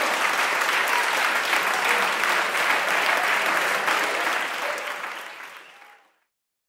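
A small group of people applauding, the clapping fading out about five to six seconds in.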